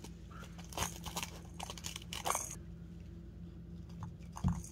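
A dog chewing and tearing at a soccer ball, crunching and ripping at its cover and stitching in irregular bursts, busiest in the first half, with a low thump near the end.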